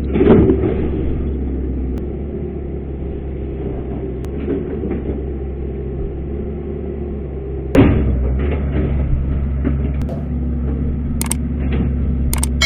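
Hitachi hydraulic excavator's diesel engine running steadily under work, with two heavy knocks, one at the start and one about eight seconds in, and a few lighter clicks as the machine works the earth bank.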